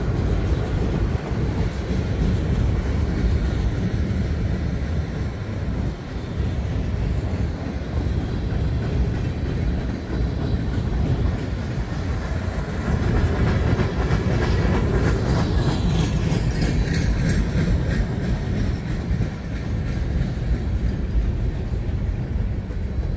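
Freight train cars rolling past close by: a steady rumble of steel wheels on the rails with some rhythmic clatter.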